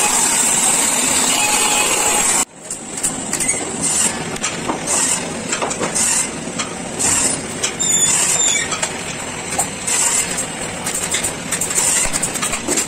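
A woodworking band saw runs steadily while a board is fed through it. About two and a half seconds in, the sound breaks off abruptly and gives way to uneven workshop noise with scattered knocks and clicks.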